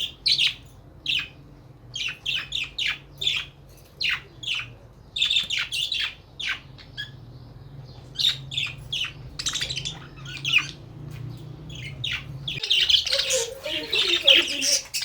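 A flock of small aviary parrots, Australian parrots such as cockatiels and budgerigars, calling with many short, sharp squawks and chirps. The calls grow into dense, overlapping chatter near the end.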